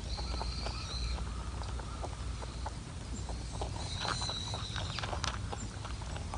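A rabbit sneezing: a rapid, irregular string of short, sharp sneezes.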